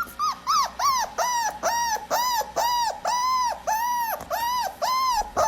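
A dog yelping in a quick, even run of short high calls, about three a second, each rising and then falling in pitch.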